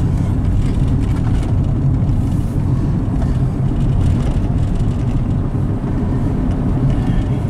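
A car driving along, heard from inside the cabin: a steady low rumble of engine and road noise.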